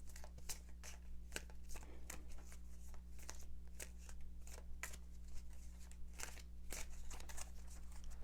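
Deck of tarot cards being shuffled by hand: an irregular run of quick, soft card snaps and slides.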